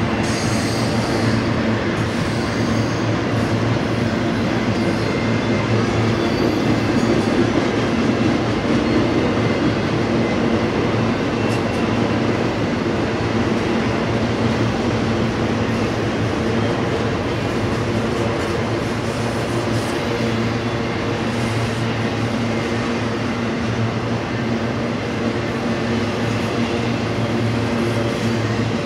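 Freight train of intermodal spine cars loaded with trailers rolling steadily past, steel wheels rumbling on the rails. A thin, high wheel squeal sounds in the first couple of seconds.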